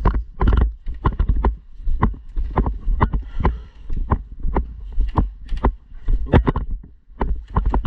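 Footsteps at a walking pace, about two a second: thuds with a low rumble and rustling between them.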